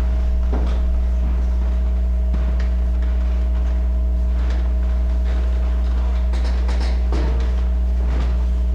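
Loud, steady electrical mains hum in the recording, with a few faint knocks and clicks scattered through it.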